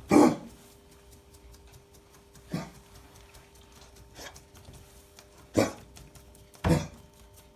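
Cocker spaniel coughing in four short fits, the first the loudest, a sign of kennel cough.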